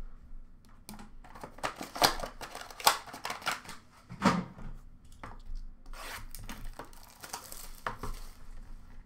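Cardboard hockey-card box being opened and its packaging torn and handled by hand: an uneven run of rustling, scraping and sharp snaps, the loudest about two, three and four seconds in.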